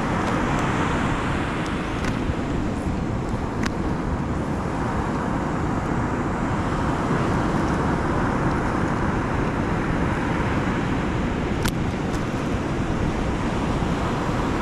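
Ocean surf breaking steadily on a beach, a constant rushing noise, with a couple of faint clicks.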